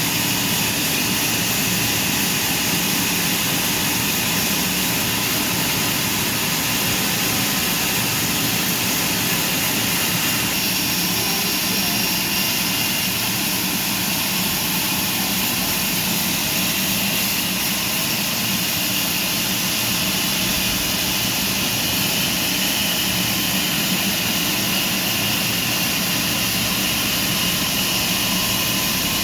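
Sawmill machinery running steadily: a constant mechanical noise with a high, even whine over a low hum.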